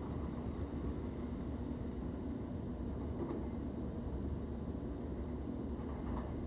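Steady running noise of an electric suburban train heard from inside the carriage while under way: a low, even rumble of wheels on the rails.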